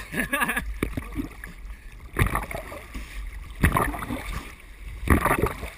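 Lake water sloshing and splashing over a camera held at the surface, in loud surges about every one and a half seconds as the waves wash over it, with a steady low rumble underneath.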